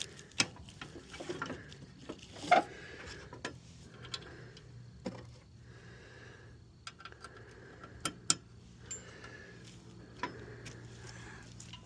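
Scattered metal clicks and knocks as parts are handled and fitted on a riding mower deck, the loudest about two and a half seconds in, over a faint steady hum.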